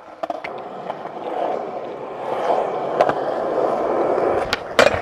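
Skateboard wheels rolling over a rough, worn tennis-court surface, the rolling noise building as the skater speeds toward a ledge. A few sharp clacks of the board cut through, the loudest near the end.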